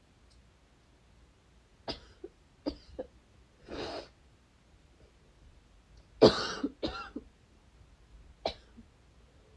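A person's dry coughing: a string of short, sharp coughs, with a longer breathy sound just before four seconds in and the loudest cough burst about six seconds in, followed by a few more single coughs.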